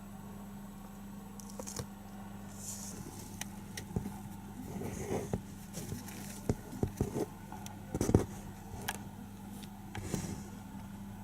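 Kittens playing: scattered soft thumps, scratches and clicks of paws and claws, the loudest thump about eight seconds in, over a steady low hum.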